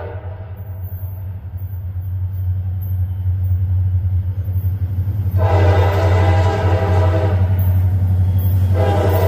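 CSX freight train's diesel locomotive approaching with a steady low rumble that grows louder, its air horn sounding one long blast about halfway through and starting another near the end.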